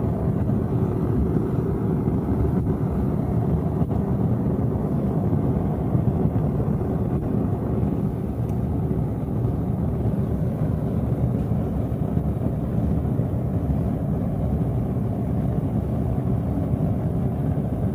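Propane burner of a small stainless-steel melting furnace firing at full flame, a steady low rushing noise with a faint hum in it, heating a graphite crucible of aluminum cans.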